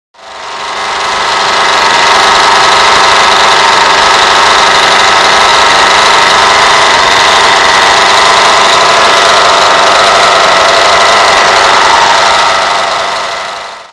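Taplin Twin two-cylinder, water-cooled model diesel (compression-ignition) engine running steadily on a test stand, with a dense, even buzz. It fades in at the start and fades out at the end.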